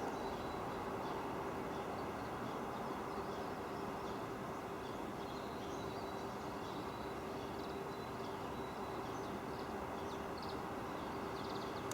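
Barn swallows twittering faintly in short high chirps scattered through, over a steady background rumble with a constant low hum.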